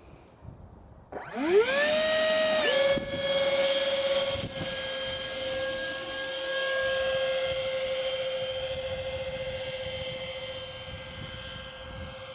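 Electric ducted fan (impeller) of a homemade RC foam model plane spooling up about a second in, rising quickly to a high steady whine. The pitch dips slightly just under three seconds in, then holds while the whine slowly fades toward the end.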